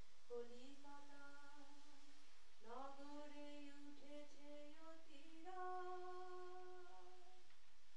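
A woman singing solo and unaccompanied, holding long drawn-out notes and sliding up into each new phrase.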